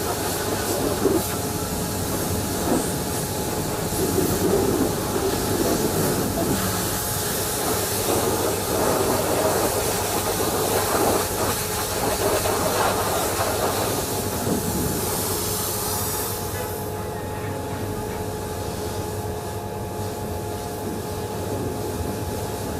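Hot-water pressure washer spraying the wheels and chassis of a truck, a steady hiss of the jet with the machine running underneath in a steady hum. The spray stops about two-thirds of the way through while the machine keeps running.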